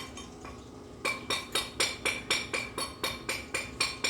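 A hammer striking metal in quick, even blows, about four a second, each with a bright metallic ring; the blows pause briefly during the first second, then resume.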